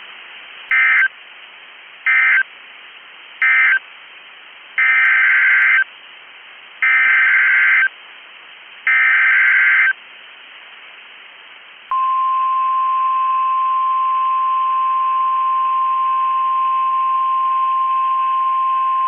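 Emergency Alert System tones from NOAA Weather Radio: three short bursts of screechy two-tone digital data (the SAME end-of-message code), then three longer bursts (the SAME header announcing the next alert), with faint hiss between them. About twelve seconds in, the steady 1050 Hz warning alarm tone starts and holds, the signal that a warning is about to be read.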